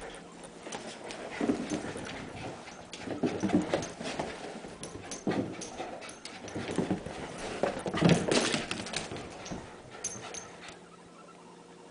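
A dog running fast around a house, its paws and claws thumping and clicking on wooden floors in irregular bursts, loudest about eight seconds in.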